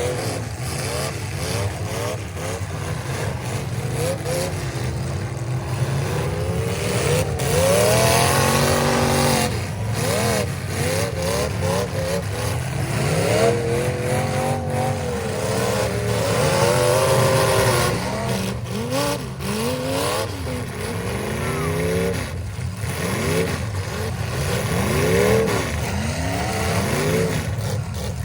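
Several demolition derby cars' engines revving up and down over one another, with a few sharp crash impacts of cars colliding.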